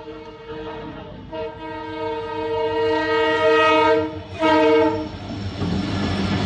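Diesel locomotive's horn sounding a warning as it approaches a level crossing: a long blast that grows louder, a brief break, then a short blast. After that the locomotive passes close by with a low rumble.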